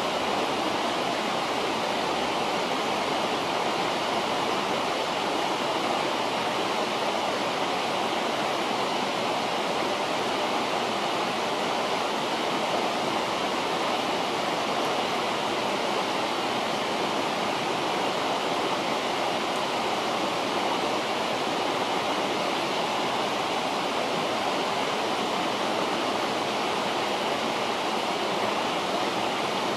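River water rushing steadily, an even, unbroken flow.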